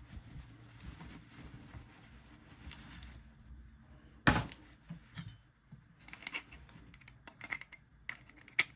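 Small parts of an appliance door-lock unit being handled during repair: one sharp knock about four seconds in, then a run of small clicks near the end.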